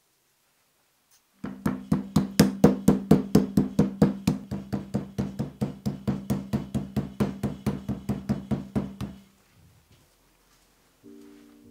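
Meat tenderizer mallet pounding zucchini strips on a wooden board: a fast, even run of knocks, about five a second, that stops about nine seconds in. Music comes in near the end.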